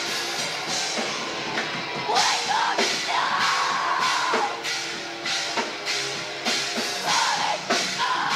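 Live rock band playing loud: a drum kit with cymbal hits about twice a second under two long held notes, each bending up into pitch and falling away at its end.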